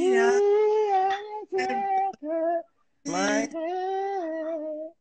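A single high voice singing a song in long held notes, in four phrases with short breaks, heard through a phone's live-stream audio.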